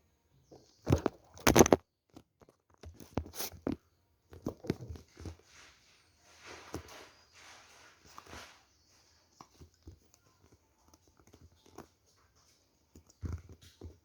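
A stitched football being handled and worked closed by hand: irregular knocks, taps and scraping, with two louder knocks about a second in.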